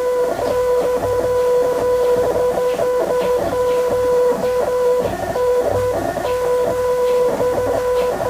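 Strange signal from a refrigerator: a steady beep broken by short gaps at uneven spacing, which the owner takes for Morse code. It runs over a rough crackling buzz, the 'za-za' noise he suspects is itself a signal.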